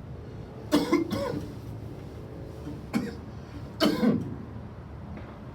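A man coughing in short fits from smoke: two or three coughs about a second in, one near three seconds, and two more around four seconds.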